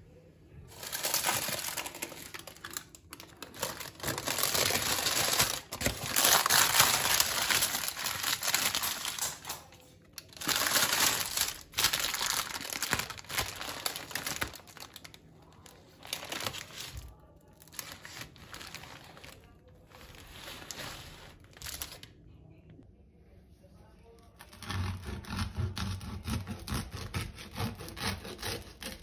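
Baking parchment paper crinkling and rustling in loud, irregular bursts as it is handled around a baked loaf. Near the end a knife rasps through the bread's hard crust.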